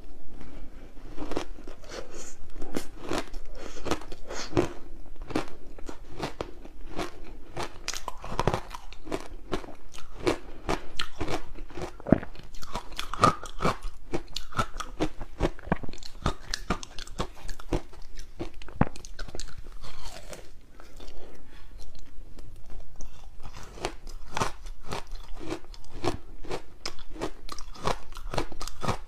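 Close-miked biting and chewing of soft frozen green barley ice balls: a dense, irregular run of crunches and crackles, several a second.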